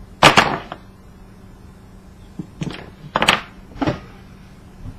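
Sharp hard-plastic clacks and cracks as the black plastic frame around a copper coil is handled and pried apart by hand. The first, about a quarter second in, is the loudest and longest, followed by four quicker knocks from about two and a half seconds on.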